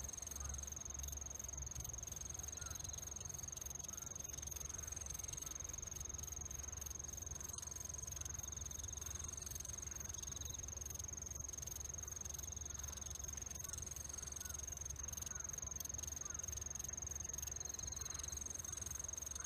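A steady high-pitched insect trill that does not break, over a low steady rumble, with a few faint short trills and chirps here and there.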